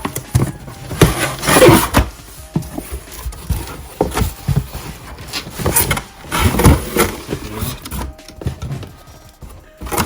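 Cardboard boxes being handled and opened: irregular knocks and taps with rustling and scraping. Two longer, louder scraping stretches come about a second in and again around six seconds.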